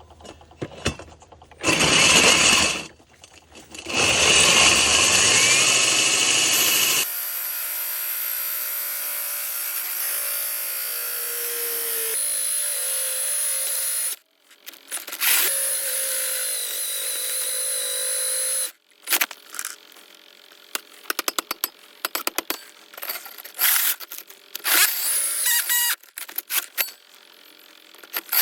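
Milwaukee cordless core drill running in several stretches: two short loud runs, then a long steady run with a motor whine, briefly stopping and restarting, and many short on-off bursts near the end.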